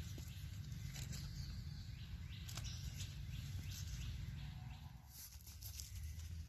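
Dry leaves crackling and rustling as a small knife digs a wild mushroom out of the forest floor, over a low rumble of wind or handling on the microphone. In the background a creature repeats a short falling chirp about twice a second, stopping about halfway through.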